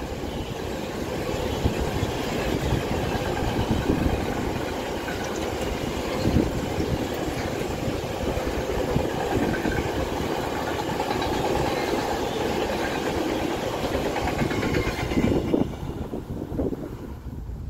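Freight train of multi-deck car-carrier wagons rolling past at trackside, a steady noise of wheels on rail that falls away sharply near the end as the last wagon clears.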